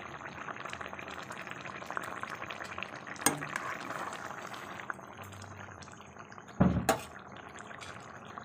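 Fish curry bubbling at a boil in a metal kadai, with a spoon stirring it. The spoon knocks sharply on the pan about three seconds in, and twice more, louder, a little before the end.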